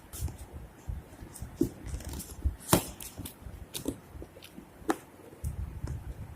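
Hands handling and pulling at a phone's cardboard box and packaging: rustling and scraping with scattered sharp clicks, the loudest about three seconds in and again near five seconds.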